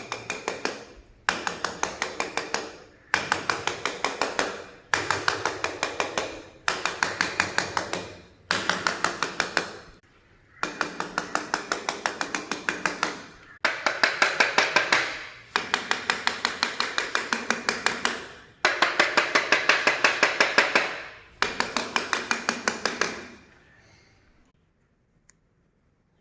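Granite stair-top slabs being tapped over and over to sound-check them for hollow, poorly bedded spots. The taps come in quick runs of about ten, each run lasting about a second and a half, with short pauses between runs. Each tap is sharp and rings briefly. The tapping stops shortly before the end.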